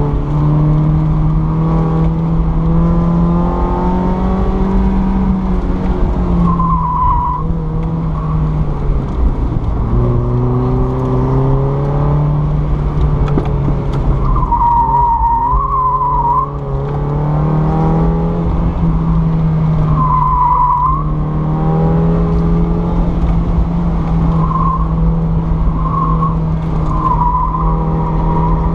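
Mazda Miata NA8's 1.8-litre four-cylinder engine running hard through an autocross run, its pitch rising and falling with throttle and gear changes, heard from inside the cabin. The all-season Falken tires squeal in the corners: about seven seconds in, a longer stretch around fourteen to sixteen seconds, again around twenty seconds, and several short chirps near the end.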